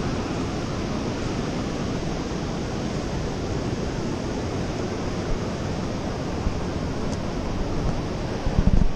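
Steady wind noise on the microphone over surf breaking on a sandy beach, with a louder low buffet of wind on the mic near the end.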